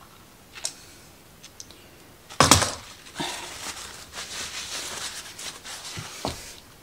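Hand handling of parts and tools on a workbench: a light click, then a loud clatter about two and a half seconds in as something is put down, followed by several seconds of rustling and light knocks with two sharp taps near the end.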